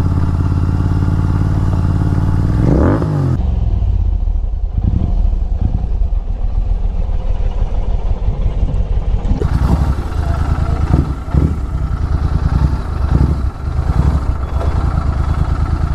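Royal Enfield Continental GT 650's 648 cc parallel-twin engine, fitted with an aftermarket Red Rooster exhaust, idling with a low note, with a short rise in pitch about three seconds in.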